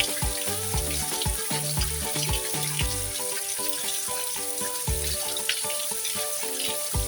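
Steady rain hiss, with background music playing over it: held notes throughout and a regular bass beat that stops about three seconds in.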